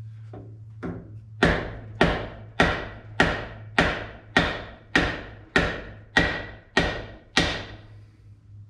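A dozen or so evenly spaced hammer taps on the stainless-steel exhaust, nearly two a second, each ringing briefly, driving the new muffler further up onto its pipe. Two lighter taps come before the regular run, which stops shortly before the end.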